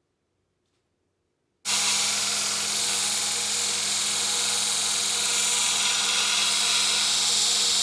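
Dead silence, then about a second and a half in a power grinder cuts in suddenly and runs steadily: a motor hum under a loud hiss of spring steel being ground as the knife's bevels are put in. The grinding hiss grows stronger over the last couple of seconds.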